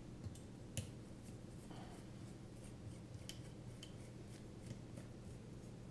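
Faint scattered clicks and ticks of a small hex screwdriver turning screws into a carbon-fibre drone frame, over a steady low hum.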